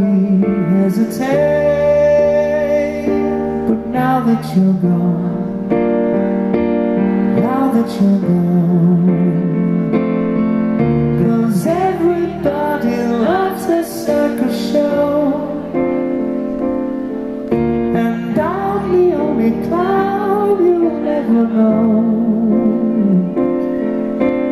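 A man singing a slow melody with held, wavering notes, accompanied by piano, in a live concert performance.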